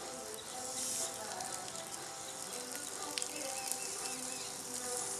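Steady insect buzzing, with a few short bird chirps about three seconds in.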